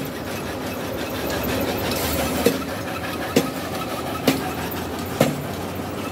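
Aggregate belt conveyor of a concrete batching plant running with a steady mechanical rumble. From about two and a half seconds in, a sharp clack repeats a little under once a second.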